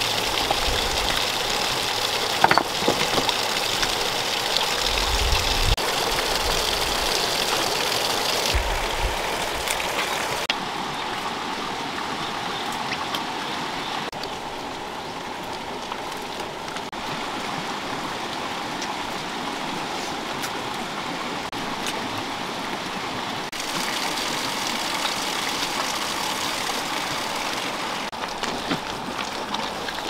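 Running water from a small waterfall spilling over rocks: a steady rushing hiss with an occasional knock. The rush turns softer about ten seconds in and picks up again later on.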